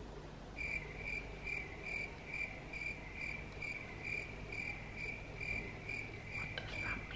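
Cricket chirping sound effect, the stock 'awkward silence' gag: a steady run of short, even chirps at one pitch, about two a second, starting about half a second in.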